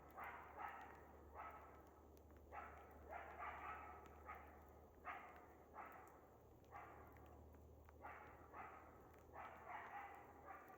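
Faint animal calls in the background: about fifteen short, bark-like calls, often in pairs, over a steady low hum.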